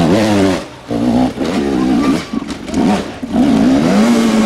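Dirt bike engine revving hard in bursts on a steep enduro climb, the revs rising and falling with the throttle. It drops away sharply about a second in, stutters on and off in the middle, then holds high and steady near the end.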